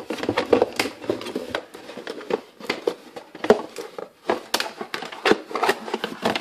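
Cardboard box and clear plastic accessory packaging being handled: irregular rustling and crinkling with many light clicks and taps.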